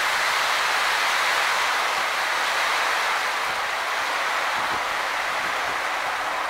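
Steady hiss of heavy rain with an approaching passenger train hauled by a WAP-4 electric locomotive.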